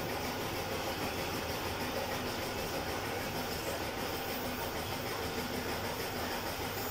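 Air spray gun hissing steadily as it sprays paint onto a car bumper, with a faint steady mechanical hum beneath it.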